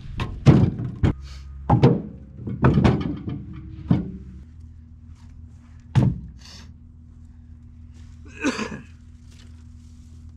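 Split beech firewood logs thrown onto a load in a dump trailer, landing with a series of thunks: a quick run of them in the first four seconds and one more about six seconds in.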